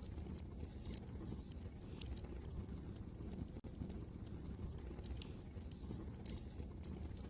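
Wood fire crackling in a fireplace: irregular sharp pops and snaps over a steady low rumble, with a momentary dropout about three and a half seconds in.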